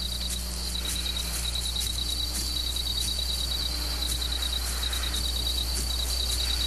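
Crickets chirping steadily in quick, even pulses, with a low steady hum underneath.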